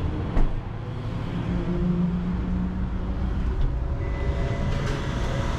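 Low, steady rumble of a vehicle engine and traffic running nearby, with a brief knock about half a second in.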